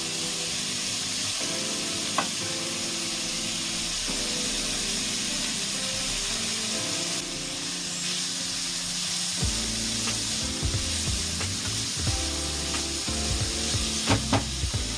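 Chopped vegetables and fresh corn sizzling steadily in hot oil in a pan, with a few short clicks of stirring.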